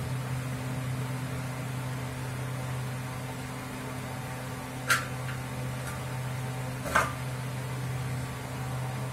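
Steady low electrical hum, as from a running appliance or fan motor, with two sharp clicks, one about five seconds in and one about two seconds later.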